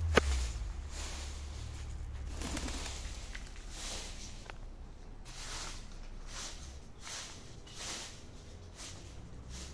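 Domestic pigeon cooing, with a sharp click right at the start and a run of short soft hisses about every half second in the second half.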